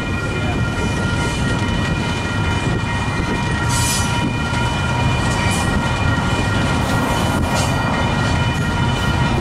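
Freight train rolling past: a steady, heavy rumble with a constant high whine held over it.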